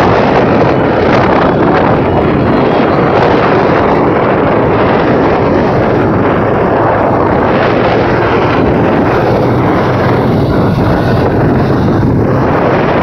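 Steady, loud wind noise buffeting the microphone of a camera riding forward along a city street, over the rumble of road traffic.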